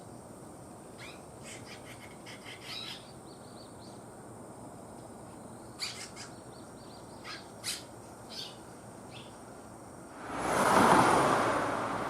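Red-rumped swallows calling in short, scattered high chirps. Near the end a passing vehicle rises to the loudest sound and fades away.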